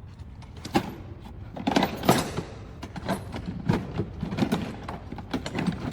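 Irregular clicks, knocks and rattles of metal parts and tools being handled, with a sharp knock about a second in and a loud cluster around two seconds in.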